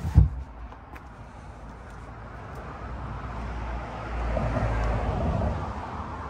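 A couple of sharp knocks right at the start, then a passing vehicle swelling and fading, loudest about four to five seconds in.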